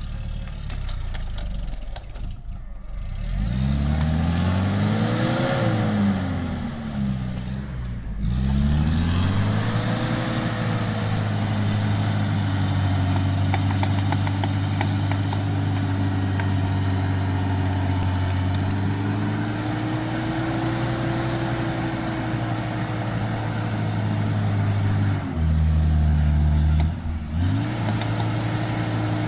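Opel Frontera A Sport's engine under load in deep mud: revs rise and fall once in the first few seconds, then are held steady for a long stretch while the 4x4 churns forward. The revs dip briefly near the end and come back up.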